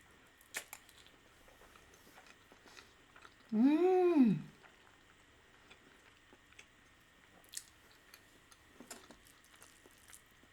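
Soft close-up chewing of a mouthful of rice risotto, with faint scattered mouth clicks. About three and a half seconds in comes a one-second hummed "mmm" that rises and falls in pitch.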